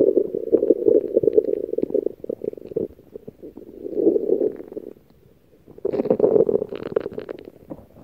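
Stomach growling in three gurgling bouts: a long one at the start, a short one about four seconds in, and another about six seconds in.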